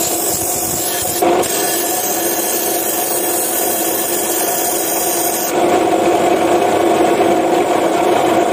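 Abrasive cut-off saw wheel grinding the end of a new diesel piston ring held by hand, a steady grinding hiss over the motor's hum. About five and a half seconds in, the ring comes off the wheel and the motor runs on alone.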